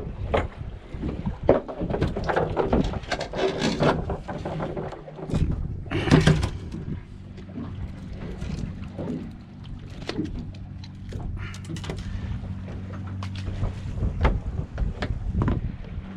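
Irregular knocks and thuds of fish and fishing tackle being handled on a fibreglass boat deck while a fish is unhooked. A steady low hum joins about five seconds in.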